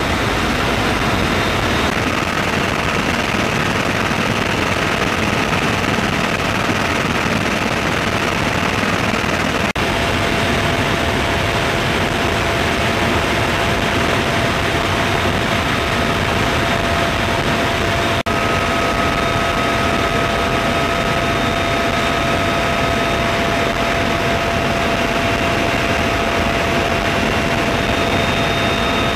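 UH-1Y Venom helicopter in flight, its twin turboshaft engines and four-blade rotor making a loud, steady wash of noise with a faint steady whine, as heard at the open cabin door.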